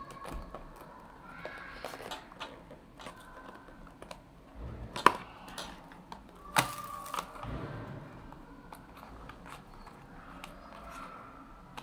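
Hands handling clear plastic packaging: rubbing, taps and small clicks as a plastic case is opened and a thumbdrive is pulled out of its card box, with a sharp click about five seconds in and another about a second and a half later.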